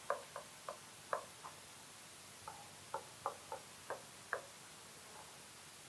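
Light, irregular tapping of a stylus or fingertip on the glass of an interactive touchscreen board during handwriting: about a dozen faint ticks in two short runs with a pause between.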